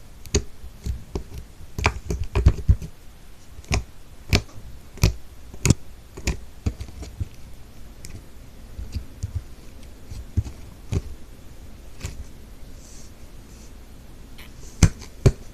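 Slime being poked and squeezed by hand, giving irregular sharp pops and clicks. They come thick in the first half, thin out, and two loud ones come near the end.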